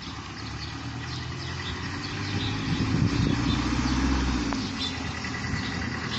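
A motor vehicle's engine running nearby, growing louder and slightly higher in pitch about halfway through, then easing off as it passes.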